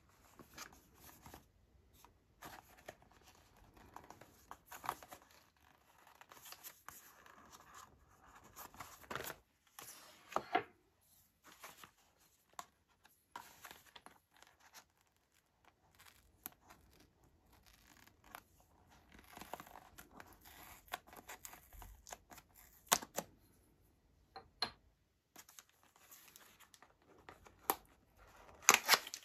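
A small cardboard retail box being handled: its card surfaces rub and scrape, with scattered sharp clicks and taps. Near the end the paper seal sticker on the box is picked at and torn, the loudest sound.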